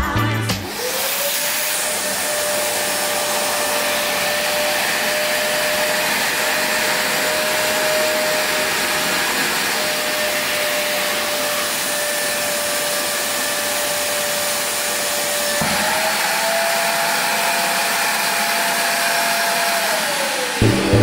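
Kärcher WD1 Classic wet/dry vacuum cleaner switched on: its motor spins up to a steady whine over a rushing of air. About 16 seconds in the whine steps up a little in pitch, and near the end the vacuum is switched off and winds down.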